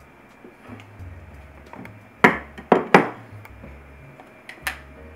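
Objects set down and knocked against a kitchen countertop: three sharp knocks in quick succession about two seconds in, then a lighter one near the end.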